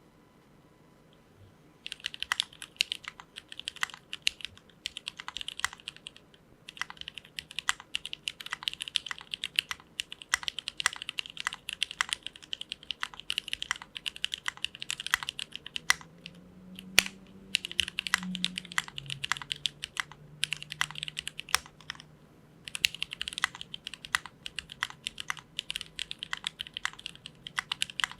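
Mechanical keyboard with an aluminium plate, lubed and filmed Cherry MX Clear-top Nixie switches and GMK keycaps, typed on in fast runs of clacking keystrokes. The typing starts about two seconds in, with short pauses between runs.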